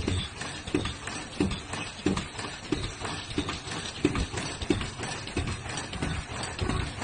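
Automatic face-mask making machine running, knocking in a regular rhythm about three times every two seconds as it cycles through ear-loop feeding, cutting and welding, over a continuous mechanical clatter.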